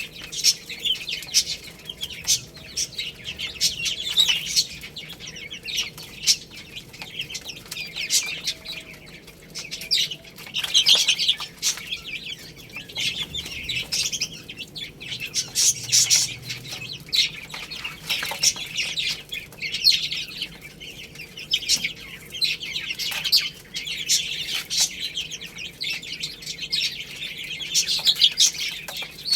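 A group of baby chicks peeping continuously, with many high-pitched chirps overlapping one another.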